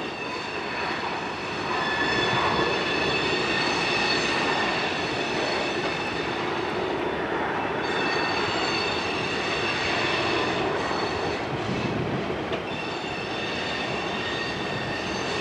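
Freight car wheels squealing in several steady high tones as the cars roll through a curve, over a rumble of wheels on rail. The squeal breaks off for a moment about halfway through, then comes back.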